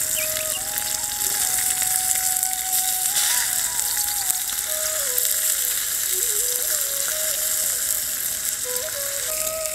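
Masala-coated river fish frying in oil on a black iron dosa tawa, a steady sizzle. A simple one-line background melody plays over it.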